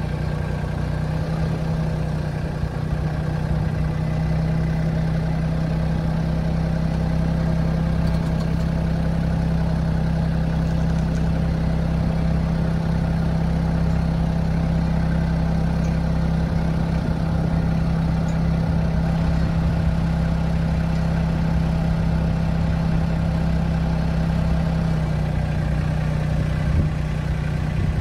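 Compact tractor's engine running steadily close by, its pitch stepping up a little about a second in and dropping back near the end, as its front loader raises a pallet.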